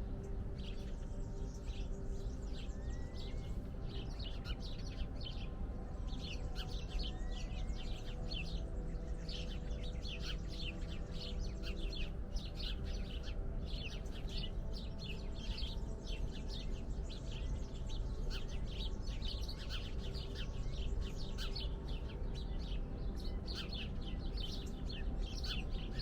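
A chorus of small birds chirping rapidly and continuously, with a couple of short rising whistles, over a steady low hum.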